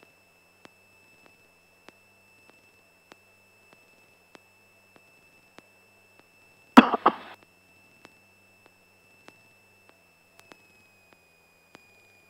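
Light-aircraft intercom audio feed: a steady high-pitched electrical whine with a faint tick about every 0.6 s. About seven seconds in there is one short, loud cough into a headset microphone.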